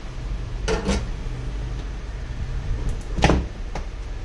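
A few sharp clicks and knocks, as of small hard objects handled on a work surface: two close together about a second in and a louder one a little past three seconds, with fainter ticks around it, over a steady low hum.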